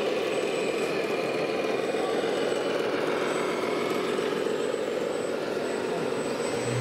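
A scale RC truck's sound module playing a diesel engine running steadily through its small speaker.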